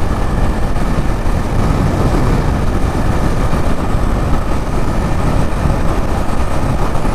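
Heavy wind rushing over a helmet-mounted lav mic on a motorcycle at about 100 km/h, a dense, steady roar with the bike's engine running underneath.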